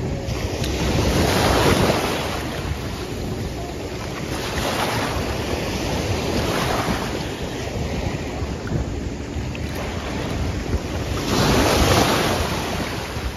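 Shallow sea water washing and sloshing around waders, swelling louder a few times, with wind rumbling on the microphone throughout.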